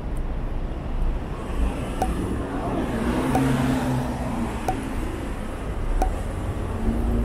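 City street traffic: a steady rumble of road vehicles, with one vehicle passing and swelling in level about three to four seconds in. A short tick repeats about every second and a quarter.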